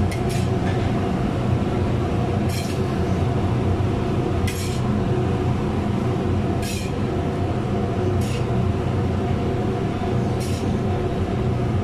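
Steady mechanical hum, like a running fan or motor, with several low steady tones, broken by a short hiss about every two seconds.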